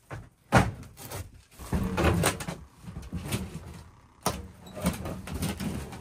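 Old sheet-metal air handler cabinet being wrestled and shifted by hand: metal scraping and rattling, with sharp bangs about half a second in and about four seconds in.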